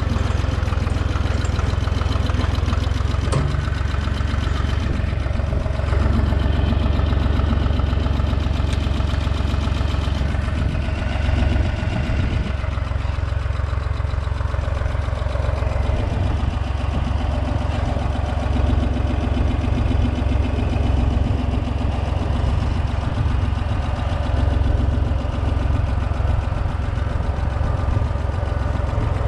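Holder A45 tractor engine running steadily.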